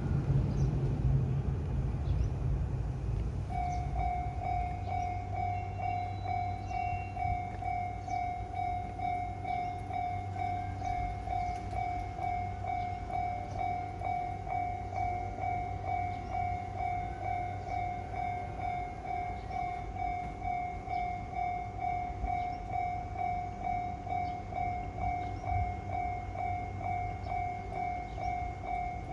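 Japanese railway level-crossing warning bell starting about three and a half seconds in and ringing on in an even, rapid electronic ding-ding-ding. A low rumble runs underneath, loudest in the first couple of seconds.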